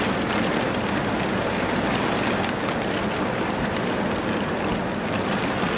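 Heavy rain pouring down in a thunderstorm: a steady, dense hiss of rain with no breaks.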